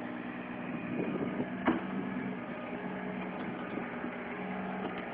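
Backhoe engine running steadily, with one sharp knock about one and a half seconds in.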